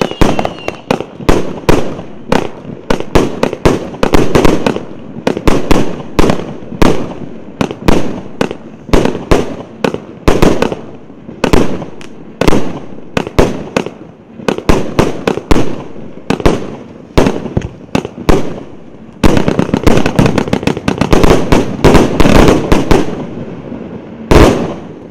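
A 49-shot fireworks cake of 1.2-inch shells firing: a steady string of bangs, about two a second, packing into a faster volley near the end, with one last loud bang before it dies away.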